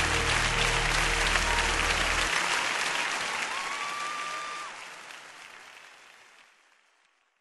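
Audience applauding at the end of a song, with the music's last sustained notes stopping about two seconds in; the applause then fades out near the end.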